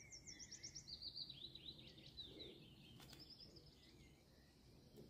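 Faint songbird song: quick runs of high, repeated chirping notes through the first half, and a shorter run just after three seconds.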